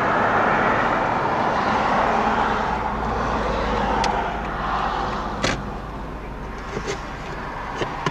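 A car passing on a road, its tyre noise swelling and then fading away over several seconds, with a few sharp clicks in the second half.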